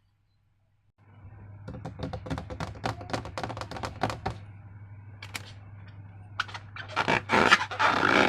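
Slime being handled by hand: after a second of quiet, a dense run of sticky clicks and crackles, then louder, wetter squelching near the end.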